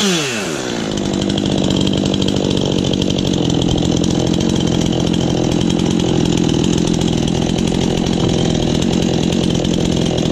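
Two-stroke chainsaw engine dropping from high revs to idle right at the start, then idling steadily with an even, buzzing rhythm.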